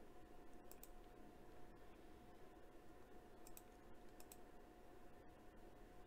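Near silence with a few faint, sharp computer clicks in close pairs: one pair just under a second in, and two more around three and a half and four and a quarter seconds in.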